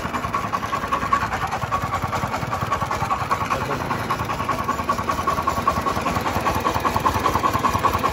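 JiangDong 30 hp single-cylinder diesel on a công nông farm truck running steadily at a fast, even putter, its flywheel turning the V-belt drive.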